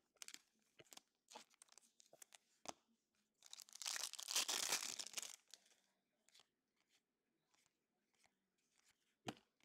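Foil trading-card pack wrapper crinkling and tearing as it is opened and pulled off the cards, loudest for about two seconds in the middle. Faint clicks from the cards being handled come before and after.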